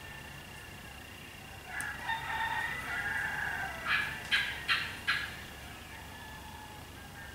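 Rooster crowing: a drawn-out crow starting a couple of seconds in, then four short, sharp calls in quick succession.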